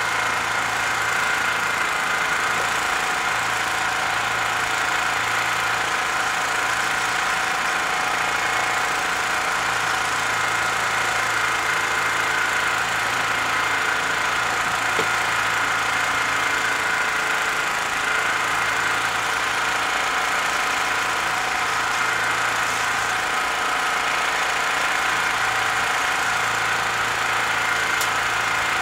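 Homemade turbojet engine running steadily at idle: a constant rushing noise with a steady high whine over it.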